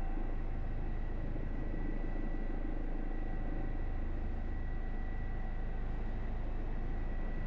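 Airbus EC145 twin-engine helicopter heard from inside the cockpit on its landing approach: steady turbine and rotor noise, a low rumble with a thin steady whine on top.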